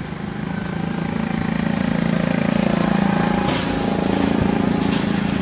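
A motor vehicle's engine running, getting louder over the first couple of seconds and then holding a steady drone.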